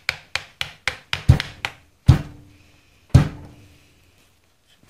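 Rapid light taps, about four a second, then three heavier knocks about a second apart, each with a brief metallic ring, as a hand tool strikes a Holley carburetor to free a stuck part during disassembly.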